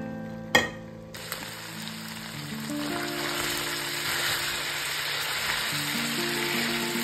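Pork cubes frying in hot oil in a pan, a steady sizzle that starts suddenly about a second in, while they are stirred with a silicone spatula. A single sharp knock comes just before the sizzle starts.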